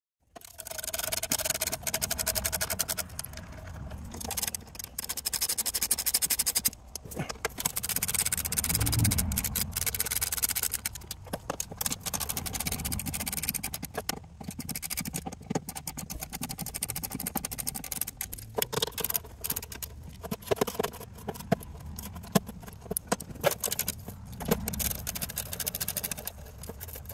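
Socket ratchet clicking and tools scraping and knocking against the underside of a utility vehicle as the bolts of the old skid plate are undone, with many short irregular clicks and knocks throughout.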